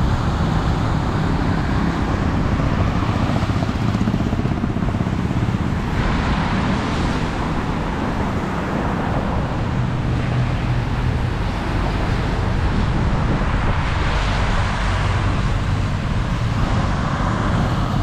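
Strong wind buffeting the microphone with a steady low rumble, over traffic passing on a wet road that swells and fades a couple of times.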